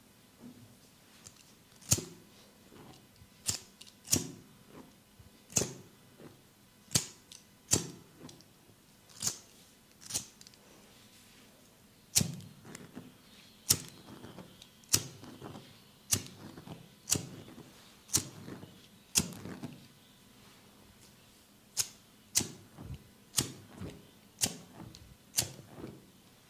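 Sharp hand slaps of a head and neck massage, landing about once a second in an uneven rhythm, with a couple of short pauses.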